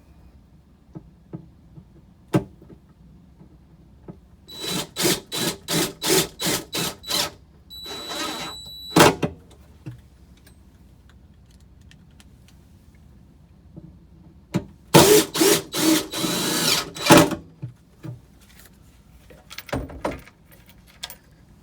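Power drill-driver driving pan-head screws to fasten a door lock catch, in two bursts for two screws. The motor is pulsed on the trigger several times in each burst, and the first burst ends with a short steady whine.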